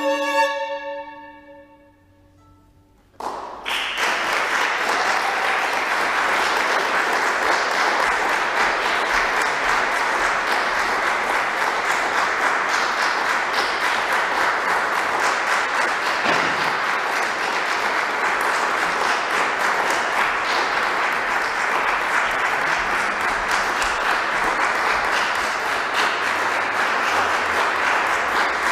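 The final note of a solo violin fades and dies away over about three seconds. Then audience applause breaks out and continues steadily.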